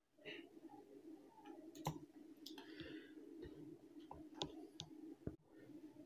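Near silence: faint room tone with a low steady hum and a few faint, scattered clicks.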